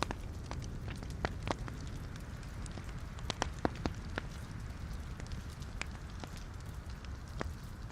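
Wood fire burning in a fireplace: a steady low rumble of flame with scattered sharp crackles and pops from the logs, clustering about a second in and again around the middle.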